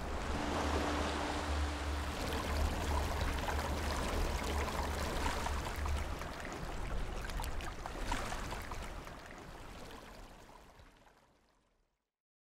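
Flowing-water ambience: a steady rushing with a deep low rumble and scattered faint clicks, fading out to silence near the end.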